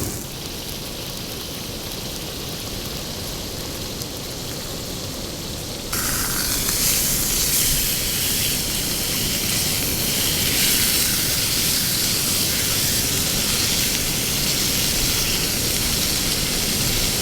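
Heavy rain falling steadily. About six seconds in, a hiss abruptly gets louder and brighter and then holds steady.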